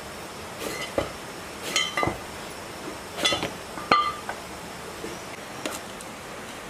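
Metal knocks and clinks as a stripped diesel engine block is shifted and rocked on concrete, about half a dozen sharp strikes, a few ringing briefly, the loudest about four seconds in.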